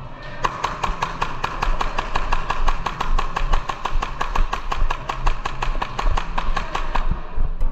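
Airsoft gun firing a fast string of shots, about six a second, for roughly six seconds, then stopping.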